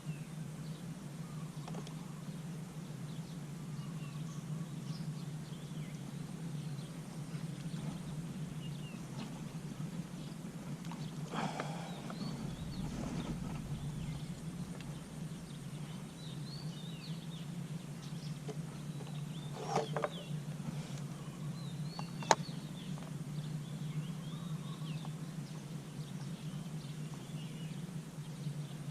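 Steady low hum with faint, scattered bird chirps. A few short clicks stand out, the sharpest about 22 seconds in.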